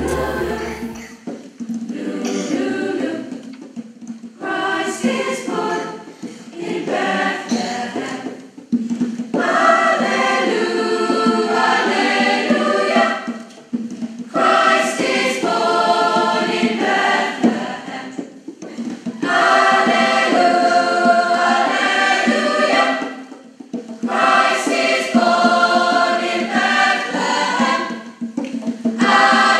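A choir singing, in phrases of about four to five seconds broken by brief pauses.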